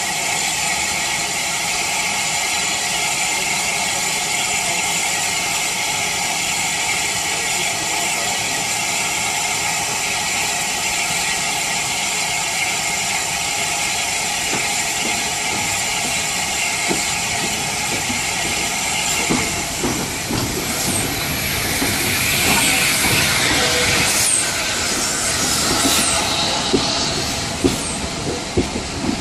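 Steady hiss of steam from a standing Bulleid Battle of Britain class steam locomotive. About twenty seconds in, an arriving steam-hauled train takes over: wheels click over the rail joints and squeal as the coaches roll past.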